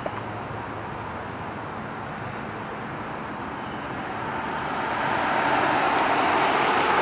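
Road traffic noise: the rushing sound of a passing vehicle, swelling over the last few seconds.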